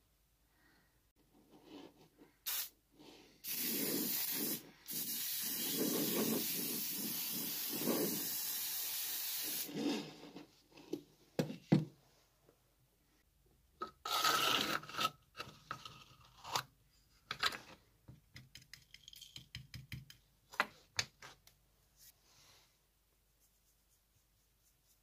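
Rubbing and scraping on the painted steel shell of a helmet: a steady hiss lasting about six seconds, then a brief burst and a string of short scrapes and taps.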